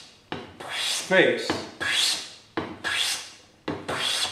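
Metal hand plane taking shavings off the face of a wooden board: about five push strokes, roughly a second apart, each starting with a sharp scrape and fading into a rasping hiss. The board's rough face is being planed flat.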